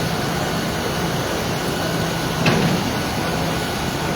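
Steady noise of vehicle engines running, with a low hum throughout and one short knock about two and a half seconds in.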